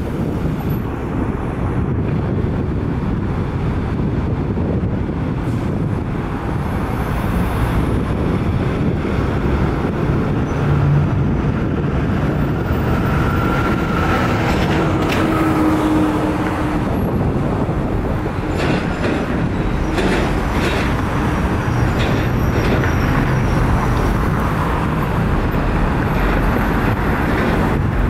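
Steady, loud low rumble of heavy vehicle noise, with a few brief faint tones about midway.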